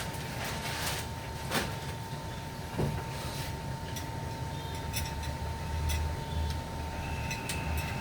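Kitchen sounds while instant noodles cook in a pot: a steady low hum with a faint steady whine, and scattered light clicks and knocks.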